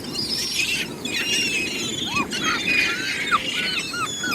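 Gulls squealing and calling, many short rising-and-falling cries overlapping, over a steady low wash of surf and wind.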